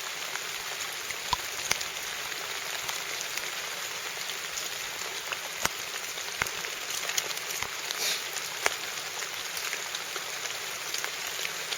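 A steady hiss like rain, with a few sharp clicks and taps scattered through it.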